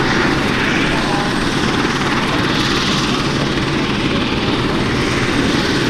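Airbus Helicopters EC120B Colibri on the ground with its Turbomeca Arrius 2F turboshaft engine running and main rotor turning: a steady, even rotor and turbine noise with a low hum underneath.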